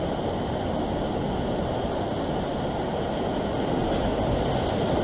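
Ocean surf breaking and washing over rocks, a steady rush of water.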